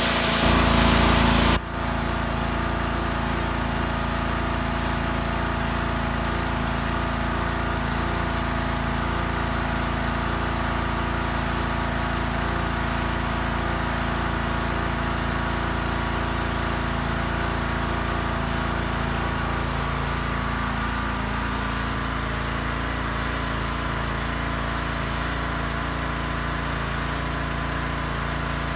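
Pressure washer running steadily, a motor drone under the hiss of the wand's jet spraying onto deck boards. A little louder for the first second and a half, then even.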